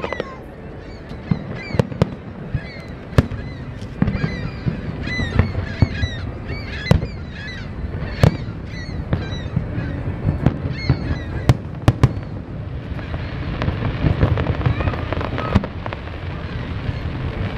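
Aerial firework shells bursting in a run of sharp bangs, often one or two a second, over a low rumble. Short high chirps come and go between the bangs, and a steady crackling hiss builds after about thirteen seconds.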